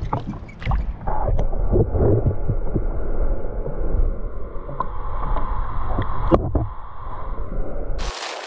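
Muffled water sounds from a camera held at and under the sea surface: heavy low rumbling and sloshing with scattered knocks, and one sharper knock about six seconds in. Near the end it cuts to open-air sound.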